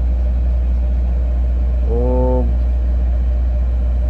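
A loud, steady low hum throughout, with a short, level, held voice sound lasting about half a second, about two seconds in.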